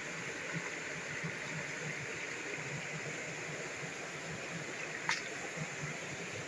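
Steady rush of flowing stream water, with one short sharp click about five seconds in.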